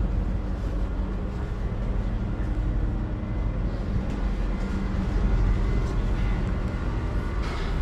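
Steady low mechanical drone of a large machine running, with a constant deep hum.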